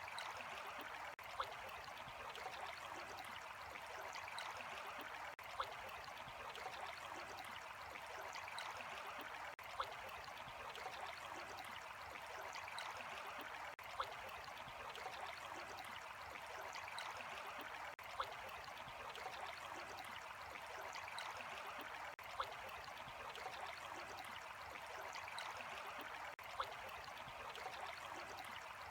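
Running water trickling steadily, like a small stream. A brief click recurs about every four seconds.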